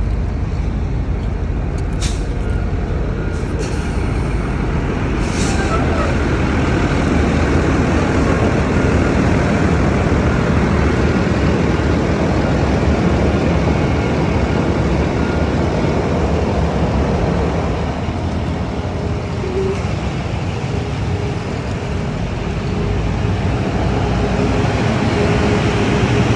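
A 2021 Blue Bird All American school bus running, with steady engine and road noise. A few short sharp noises come a few seconds in.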